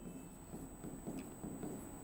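Faint, irregular taps and scratches of a stylus writing on an interactive whiteboard, over a low steady room hum.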